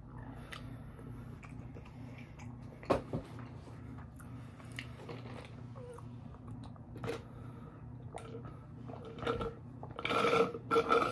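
Close-up mouth sounds of eating: finger-licking and a few wet smacking clicks over a steady low hum. Near the end comes a louder, noisy sip of lemonade from a paper cup.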